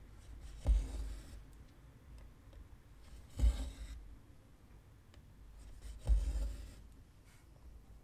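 A needle pushed through taut 14-count cross-stitch fabric in an embroidery hoop, with the two-strand cotton thread drawn through after it. Three strokes, each a soft thump followed by a brief rasp, about every two and a half to three seconds.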